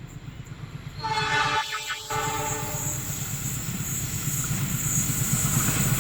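CC206 diesel locomotive sounding its horn for the Semboyan 35 signal, a chord that comes in about a second in and breaks off briefly. Under it runs a low rhythmic rumble of engine and wheels, and the noise of the approaching train grows louder.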